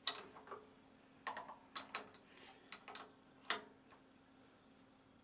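Metal collet spanner clicking and knocking against an ER32 collet nut as the collet is tightened in the milling machine's R8 collet chuck: several sharp, irregular clicks during the first three and a half seconds.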